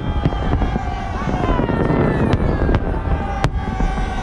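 Fireworks salute going off: several sharp bangs of bursting shells over a continuous low rumble, with thin tones that slide slowly in pitch.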